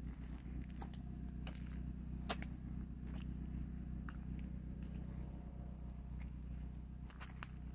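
Sneakers squelching and sucking in deep wet mud as someone walks through it, a short sharp squish at each step, about one a second and irregular, over a steady low hum.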